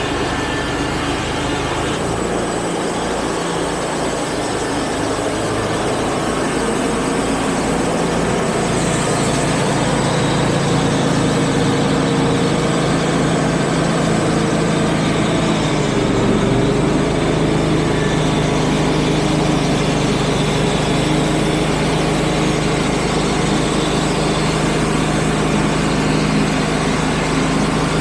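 Wood-Mizer portable band sawmill's engine running steadily, its note changing about two seconds in and again about sixteen seconds in.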